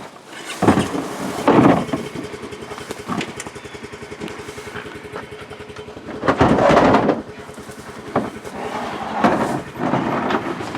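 A vehicle's engine starts about half a second in and runs with a fast, even firing rhythm, swelling louder briefly a few times, loudest just past the middle.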